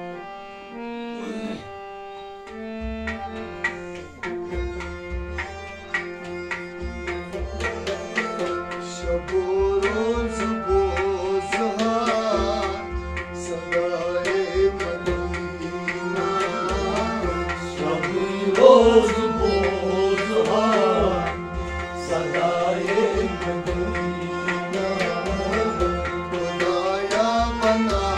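Kashmiri folk music: a harmonium plays a melody, a goblet drum (tumbaknari) joins in with a steady beat about three seconds in, with rabab and sarangi, and a man sings from about eight seconds in.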